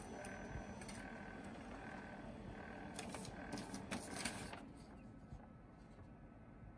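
Kyocera ECOSYS M2540dw laser printer running faintly as it prints a status page to test the newly installed fuser assembly, with a tone repeating about every 0.8 seconds. A few clicks come about three to four seconds in, then the machine goes quieter.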